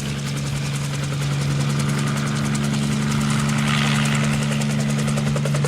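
Helicopter sound effect: a steady, loud engine hum with a fast flutter, swelling slightly midway.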